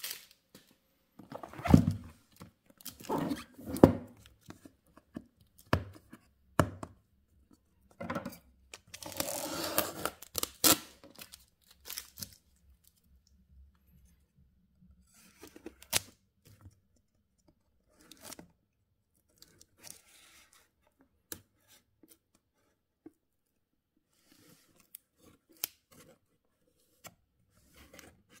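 Yellow plastic packing tape being torn and peeled off a cardboard box, the plastic crinkling, in a run of short rips over roughly the first twelve seconds. After that there are only sparse, faint taps and rustles of the box being handled.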